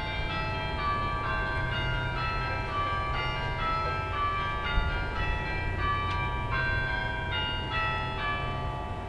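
Church bells of a Russian Orthodox belfry rung together in a festive peal at midnight for the New Year. Many bells of different pitches strike in quick, overlapping succession, each note ringing on under the next.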